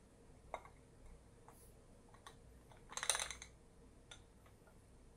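Faint clinks and taps of a rice bowl against a plate as a bowl of fried rice is turned out onto the plate, with a short cluster of rattling clicks about three seconds in.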